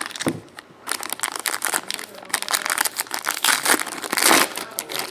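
Plastic wrapping on trading card packs crinkling and crackling as the packs are torn open and handled, densest and loudest shortly before the end.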